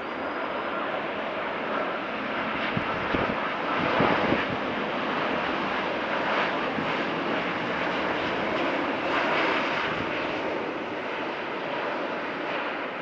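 Boeing 787-8 Dreamliner on final approach with landing gear down, its jet engines making a steady rushing noise that swells slightly and eases off over the seconds.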